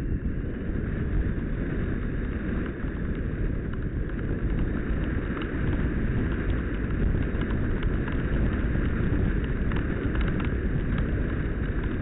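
Wind noise from airflow rushing over an action camera strapped to the back of a Multiplex Easy Glider Pro RC glider in flight: a steady low rumble with scattered faint clicks, and no motor to be heard.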